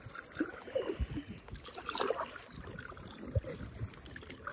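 Kayak paddle strokes on an inflatable kayak: the blades dip and splash in the water with soft irregular knocks about once a second and water dripping in between.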